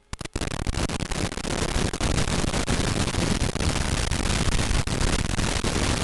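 Loud static hiss with crackles on the analog FPV video link's audio channel, typical of the signal breaking up. It starts a moment in and cuts off abruptly at the end.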